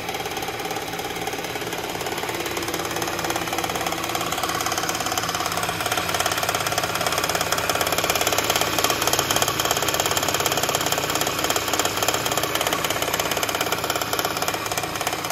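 Kia Sportage GDI four-cylinder engine running steadily with a hard, rapid knocking. The knock is heard loudest by the belt-driven pulleys, and it is not yet known whether it comes from inside the engine or from a belt-driven accessory such as the water pump.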